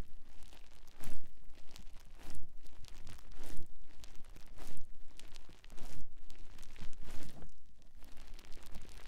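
A sponge being squeezed and worked in the hands, in a steady rhythm of about one squeeze a second, each squeeze a short rush of scratchy noise.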